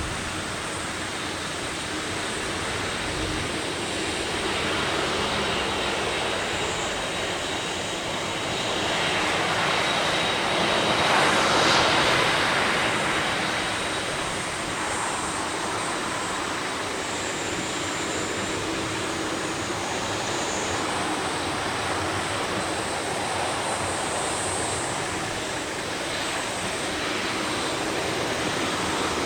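Jet engines of a Boeing 747-8 freighter heard at a distance: a steady rushing noise that swells to its loudest about ten to twelve seconds in, then eases back.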